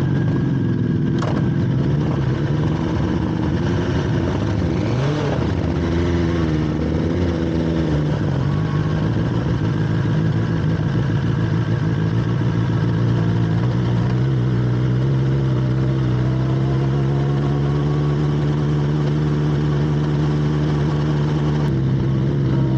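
BMW S1000XR's inline-four engine running at low speed, its note rising and falling for a few seconds early on and then holding steady. There is a short click about a second in.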